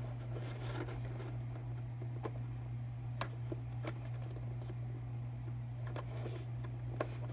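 Faint scattered clicks and light rustling of a twist tie being untwisted and plastic packaging handled on a model horse, over a steady low hum.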